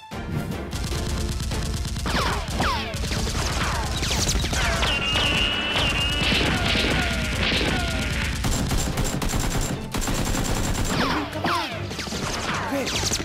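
Rapid automatic gunfire sound effects: a sustained, dense exchange of shots with many short descending whines of passing rounds, added over a staged Nerf blaster fight.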